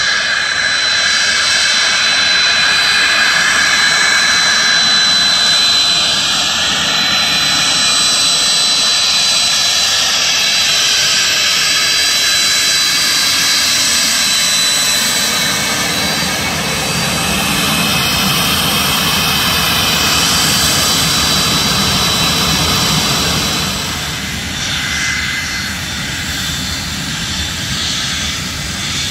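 SIAI-Marchetti S.211 jet trainers taxiing, their Pratt & Whitney JT15D turbofans running with a steady high whine over engine noise. The whine's pitch drifts as a jet rolls close past, and the sound grows quieter in the last few seconds.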